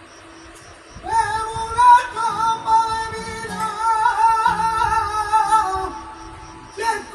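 Flamenco singing (cante) with guitar: a long, ornamented sung line of held, wavering notes that comes in about a second in, drops away near six seconds, and starts again just before the end.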